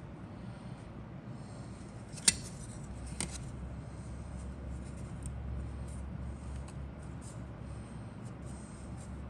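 Grey plastic model-kit parts handled in the fingers: light rubbing and shuffling of plastic, with a sharp click a little over two seconds in and a softer click about a second later, over a low steady hum.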